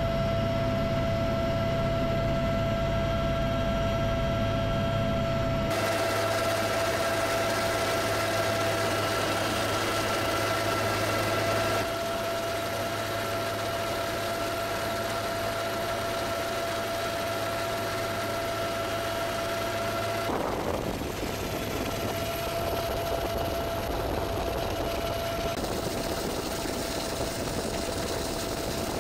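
Helicopter engine and rotor noise heard from inside the cabin: a steady whine over a steady drone. The low part of the drone shifts abruptly a few times.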